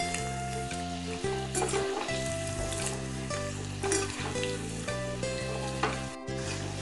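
Battered chicken pieces deep-frying in hot oil, a steady sizzle, stirred and turned with a steel slotted spoon that scrapes the pan a few times. Plucked-string background music plays over it.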